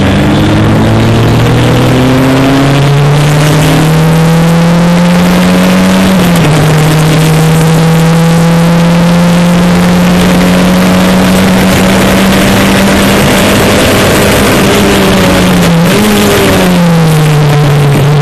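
Single-seater racing car's engine heard onboard, its pitch climbing as the car accelerates. It drops with an upshift about six seconds in, then holds a steady high pitch. Near the end it wavers and falls to a lower pitch as the car slows.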